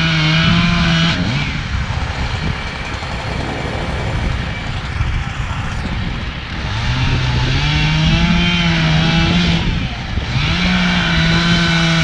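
Two-stroke chainsaw held at full throttle while cutting through limbs of a fallen tree, easing off about a second in, then revving back up past the middle and holding high, with a brief dip near the end.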